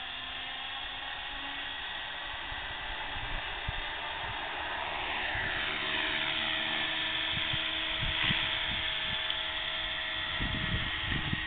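Align T-Rex 450 Pro electric RC helicopter whining at speed, its brushless motor and rotor rising in pitch and getting louder about five seconds in as it lifts off and hovers. A few low thumps near the end.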